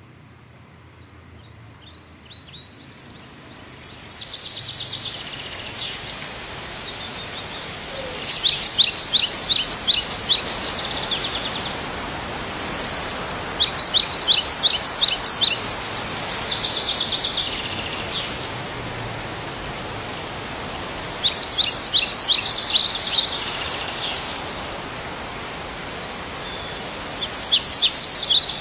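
A songbird singing in repeated bursts of rapid, high chirps, a new burst every five to seven seconds, with softer trills between them, over a steady background hiss.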